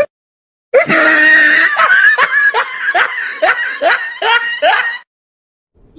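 Loud laughter: a string of rapid 'ha' bursts, about three a second, that starts under a second in and cuts off suddenly about five seconds in, like a dubbed-in laugh sound effect.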